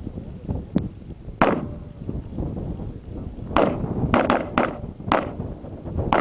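Gunshots heard from a distance on a shooting range: one shot about a second and a half in, then a string of five quick shots from about three and a half seconds on and another near the end, with a low rumble of wind on the microphone.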